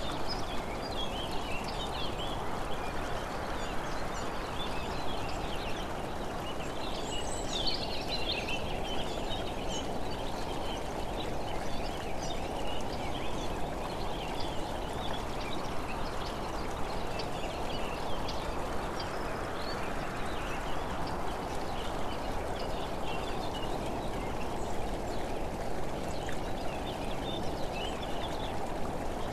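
Steady rushing noise that slowly swells and fades, with many short bird chirps over it throughout.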